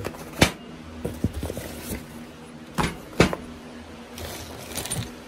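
Boxed and plastic-bagged lift-kit parts being handled and set down on a diamond-plate metal surface: a few sharp knocks, about half a second in and twice around three seconds, with lighter clicks and packaging rustle between.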